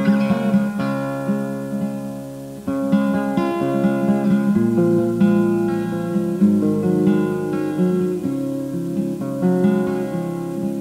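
Acoustic guitar playing an instrumental introduction, notes plucked and strummed and left ringing over one another.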